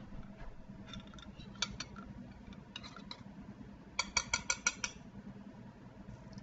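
Light clicks and clinks from handling a small ceramic pot of melted butter. About four seconds in comes a quick run of about seven ringing clinks in under a second.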